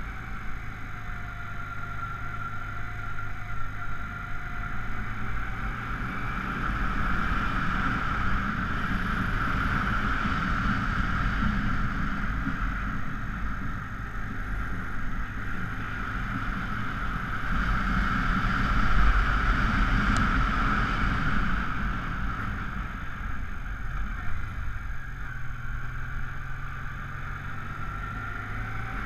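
Honda Africa Twin XRV750's V-twin engine running under load as the motorcycle climbs a steep, winding road, swelling louder twice as it pulls out of the bends.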